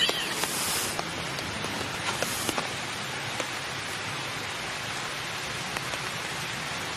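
Steady hiss like light rain, with scattered faint ticks and two short rustles, one about half a second in and one about two seconds in.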